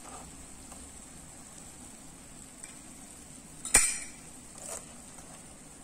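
Small medu vadai frying in oil in a miniature clay pot, a steady faint sizzle. A small metal spoon gives a sharp clink as it lifts a vadai out, about four seconds in, and a lighter clink follows a second later.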